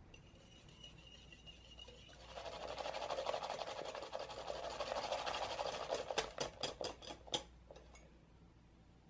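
Wire balloon whisk beating heavy cream and sugar in a glass bowl: a fast, steady swishing that starts about two seconds in. About six seconds in it gives way to roughly seven sharp clinks of the whisk against the glass.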